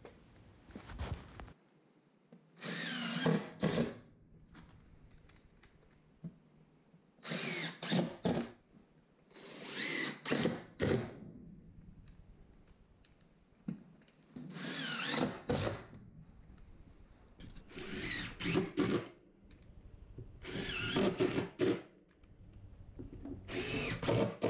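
Power drill driving star-head flooring screws into cement backer board: about seven short runs of a second or so, the motor's whine rising and falling in pitch as each screw is driven home.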